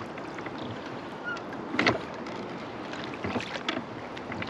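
Oars rowing a small boat: water swishing along the blades and hull, with a sharp knock about two seconds in and a few lighter clicks a little later.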